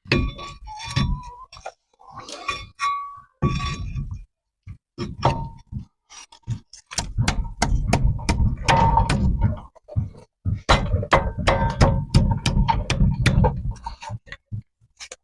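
Metal knocks and clinks as a heavy brake caliper is worked back into place over the rotor and bracket. There is a quick, irregular run of strikes, some with a short metallic ring, busiest in the second half.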